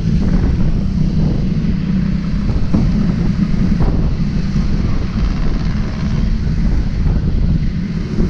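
Wind buffeting the microphone of a camera mounted on a moving bicycle: a steady low rumble, with street traffic noise mixed in.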